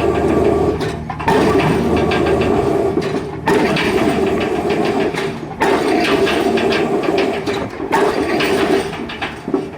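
Excavator-mounted drop hammer driving a square concrete pile, a heavy blow about every two seconds over the steady running of the machine's engine.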